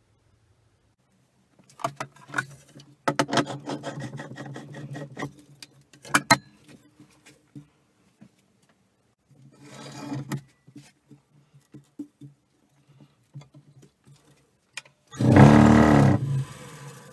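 Clicks and clattering knocks as the wooden blank is handled and mounted on the lathe. About fifteen seconds in the wood lathe switches on and spins up the blocky pine-and-plywood bowl blank: a sudden loud rush with a curving low hum, running at a speed that is too fast for the blank, then dropping away about a second later.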